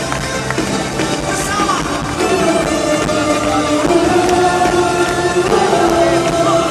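Worship band music. Long held notes, likely sung, come in about two seconds in, and the music gets louder there.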